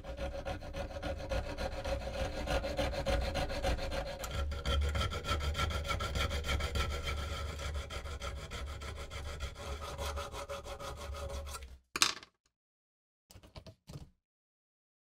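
Small hand file rasping in quick back-and-forth strokes across the steel teeth of a pruning saw blade, sharpening the teeth. The filing stops about twelve seconds in, followed by one sharp knock and two brief faint sounds.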